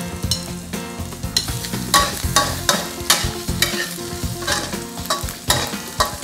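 A metal spatula scraping and clanking against a steel wok in repeated strokes, about two a second, as tofu, shallots and chopped preserved radish sizzle in hot oil.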